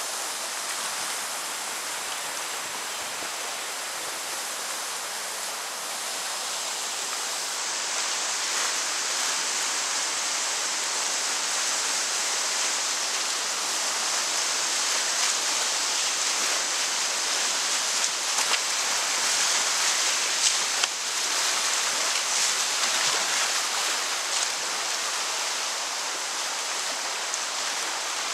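Rushing whitewater of a river rapid, heard from a kayak running it: a steady rush of water that grows louder about eight seconds in, with a few sharp splashes about two-thirds of the way through.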